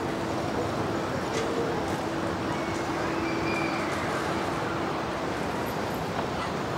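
City street ambience: a steady wash of traffic noise, with a held hum that stops about five seconds in and a single sharp click about a second and a half in.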